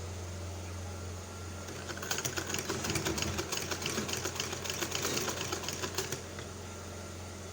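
Sewing machine stitching fast and evenly for about four seconds, starting about two seconds in and then stopping, as it sews an invisible zipper to fabric. A low steady hum runs underneath.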